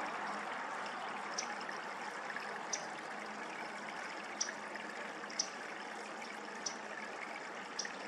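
Steady rushing trickle of flowing creek water, with about six short high chirps spaced a second or so apart.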